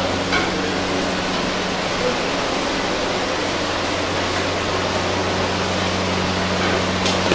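Commercial kitchen exhaust hood fans running: a steady rushing noise with a low, even hum.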